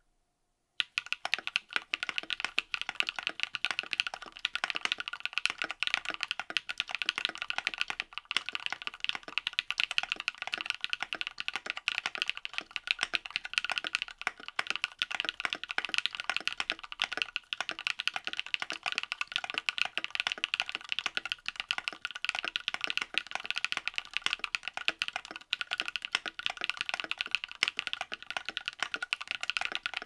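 Steady, continuous typing on a Freebird 75 custom mechanical keyboard with lubed Aflion Pink Robin switches in an aluminum plate and NicePBT keycaps: a dense stream of keystrokes that starts about a second in.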